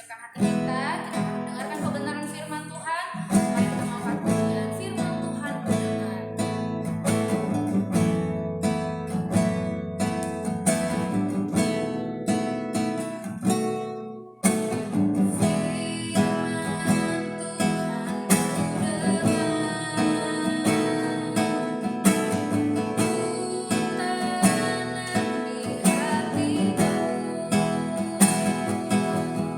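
Music: a praise song with strummed acoustic guitar, breaking off briefly about halfway through before it carries on.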